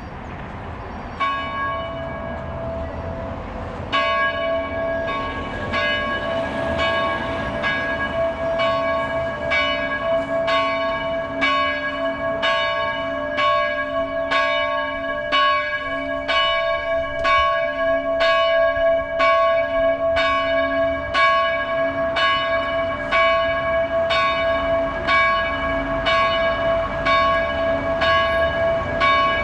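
Church bells begin ringing, with a first stroke about a second in and then, from about four seconds in, steady, evenly spaced strokes at roughly one and a half a second, each tone ringing on into the next.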